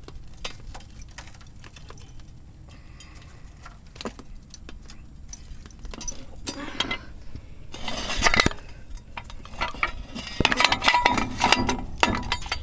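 Metal clinking and clattering: scattered sharp clinks, with a louder, denser run of clanks about eight seconds in and again near the end.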